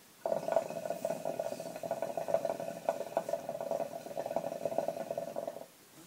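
Mya Petite hookah bubbling in one long pull of about five seconds, a rapid, uneven gurgle of smoke drawn through the water in its base.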